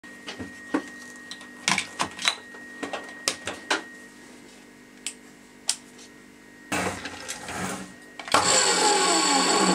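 Plastic clicks and knocks of plugs and the rocker switch on a power strip, then about eight seconds in the Metabo KGS 254 M chop saw's carbon-brush motor starts and runs loud and steady.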